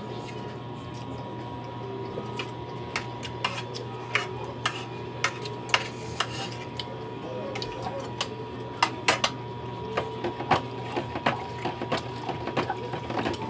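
Spoons and forks clinking and scraping on ceramic plates as people eat: many short, irregular clicks, more frequent in the second half, over a steady low hum.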